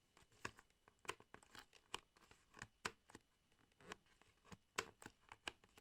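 Faint, irregular clicks and taps of a plastic motorcycle helmet being handled and turned over in the hands.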